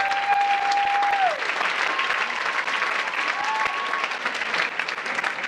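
An audience applauding with dense, steady clapping, with a few long drawn-out cheering shouts over it.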